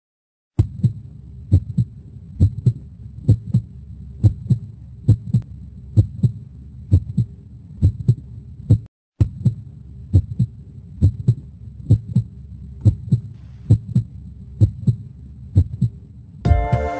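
Heartbeat sound effect: paired lub-dub thumps repeating a little faster than once a second, with a brief drop-out around the middle. Music comes in just before the end.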